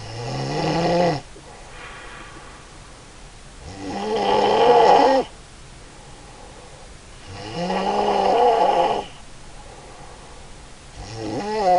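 A woman snoring in deep sleep: loud, pitched snores about every three and a half to four seconds, three full snores and a fourth starting near the end.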